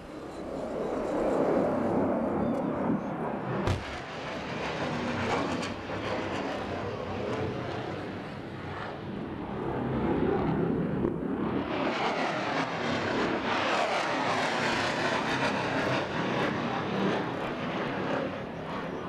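Jet noise from a McDonnell Douglas F-4 Phantom II's twin J79 turbojets as it flies past overhead. The noise swells about a second in, eases off in the middle, then builds again, harsher and hissier, as it comes by low. There is a brief sharp click near four seconds.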